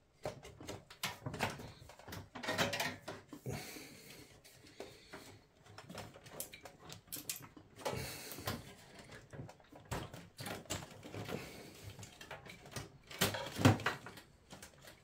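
Handling noises from a steel PC tower case: irregular clicks, knocks and scrapes of metal parts and cables being moved and slid. The loudest knocks come about a second and a half before the end.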